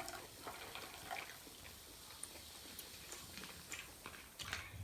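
Quiet, close-up eating sounds of pork momos being chewed: faint wet mouth clicks and smacks, with a few louder clicks near the end.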